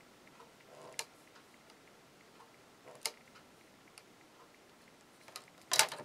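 A few sharp, faint ticks of a pen tip dotting marks onto a vinyl strap against a ruler, spaced a second or so apart, then a louder knock near the end.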